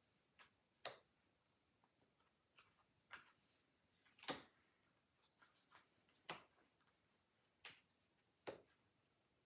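Thick tarot cards being handled and flipped one at a time: faint, sharp clicks and snaps, irregular, about one every second or two.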